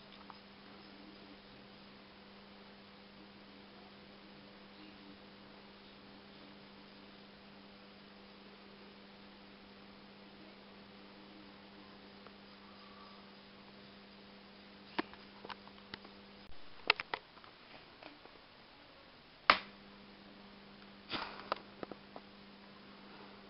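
Steady electrical hum from a TV set's flyback high-voltage circuit as it powers a small glowing discharge lamp. About fifteen seconds in come a series of sharp clicks and snaps; the hum cuts out for about three seconds and returns with one loud snap.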